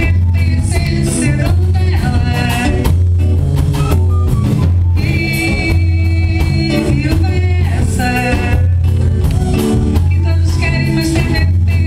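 Live band music: a melodic passage with a lead line over a steady, pulsing bass.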